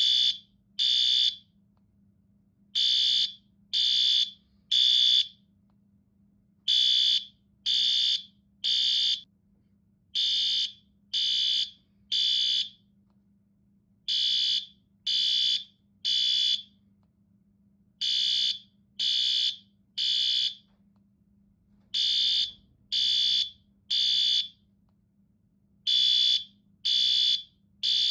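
Fire alarm sounding high-pitched beeps in groups of three, a new group about every four seconds: the temporal-three evacuation signal.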